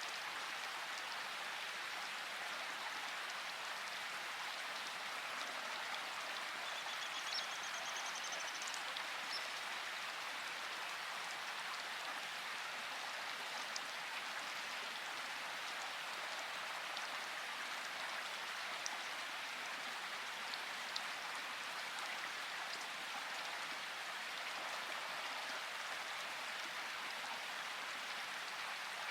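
Steady rushing water with scattered light drips or ticks, and a short high bird trill about seven seconds in.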